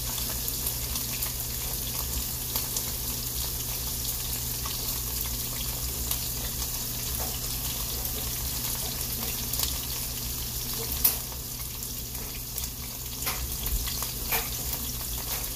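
Beef pieces frying in oil in a cast iron skillet: a steady sizzle, with a few sharp clicks of a metal utensil against a pan in the second half, the loudest about eleven seconds in.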